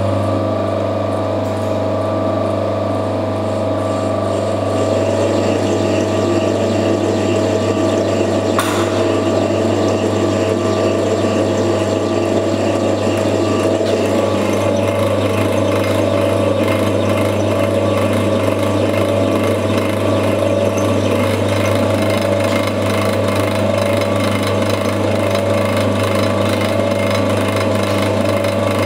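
CNC lathe running steadily, its spindle turning a metal bar while the turning tool cuts into it: a constant machine hum with cutting noise, and a single sharp click about nine seconds in.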